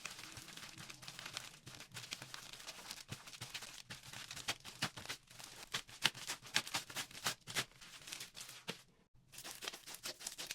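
Gold slime being squished and stretched: dense sticky crackling and popping clicks, with a short pause about nine seconds in.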